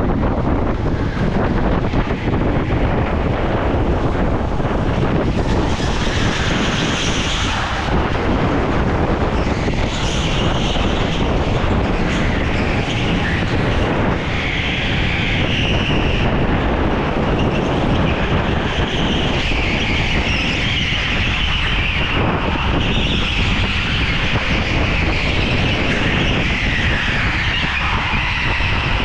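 Go-kart running at speed, heard from onboard: a steady, loud rush of kart and road noise with wind on the microphone. A higher-pitched band of noise comes and goes from about six seconds in.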